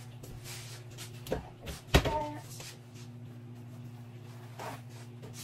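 Household knocks in a small kitchen: a lighter knock, then a sharp loud knock about two seconds in, and a faint one near the end. A steady low hum runs underneath.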